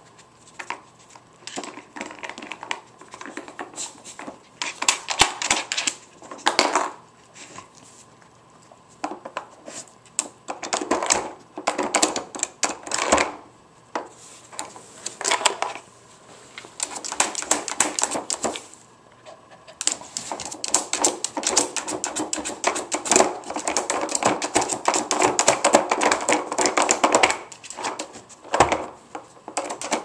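Dog pawing at a hard plastic treat-puzzle board: rapid clattering and scraping of claws on plastic, with the plastic bone-shaped pieces knocking. It comes in bursts with short pauses.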